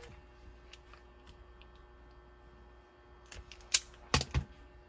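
Quiet workbench with a few faint ticks, then a cluster of sharp clicks and a low knock about three to four and a half seconds in, as a spring-loaded automatic wire stripper is picked up and handled over the cutting mat.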